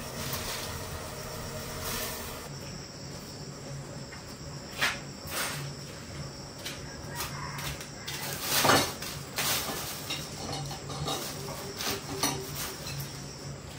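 Insects chirring steadily in the background, with scattered knocks and clatter, the loudest about nine seconds in.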